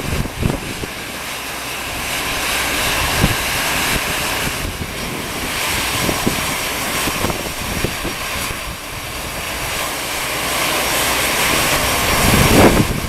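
Airbus A320-200 jet engines running at low taxi power as the airliner taxis in slowly, a steady rush that swells and eases, with a louder surge near the end.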